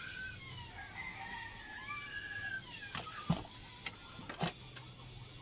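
A few sharp knocks and clicks, about three seconds in and again near four and a half seconds, over faint high chirping glides.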